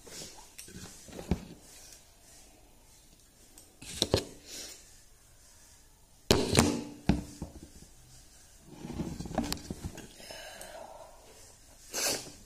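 Eating sounds: fingers working rice on a metal plate and mouth noises, with scattered knocks. About six seconds in, a steel bowl clanks against the plate as curry is tipped out, the loudest sound.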